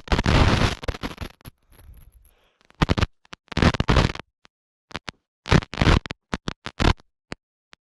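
Scratchy, crackling bursts of rubbing noise on the camera microphone, cutting in and out with dead silences between them. This is the bad sound of a GoPro whose audio is failing.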